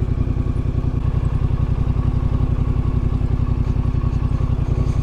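Yamaha Ténéré 700's parallel-twin engine running steadily at low revs, a rapid, even pulsing.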